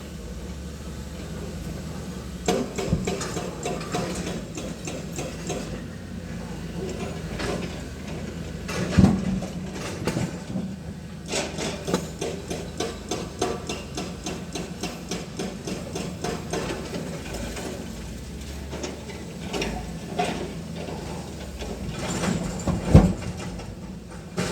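An engine running steadily under many irregular clicks and knocks, with a louder thud about nine seconds in and another near the end.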